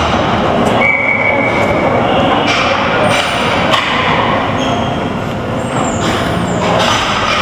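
Continuous rumbling din of a ball hockey game in an echoing indoor rink, with a brief high steady tone about a second in.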